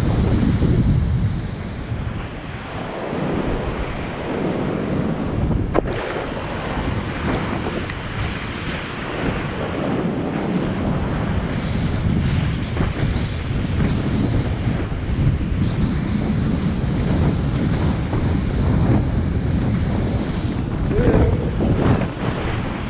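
Wind buffeting the microphone over the rush of water and waves during kitesurfing, swelling and easing, with one sharp click about six seconds in.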